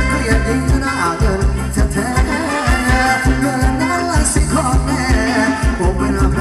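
Live band playing Thai ramwong dance music with a steady drum beat and a singer's voice.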